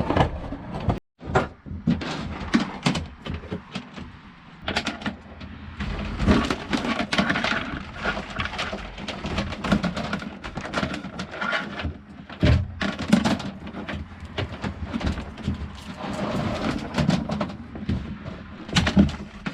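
Irregular knocks, scrapes and rustling from wire and tools being handled and pulled inside a fibreglass sailboat, with a brief break about a second in.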